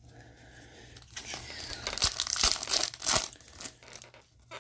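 Crinkling and tearing of a hockey card pack's wrapper as it is ripped open, starting about a second in, with a few sharp crackles.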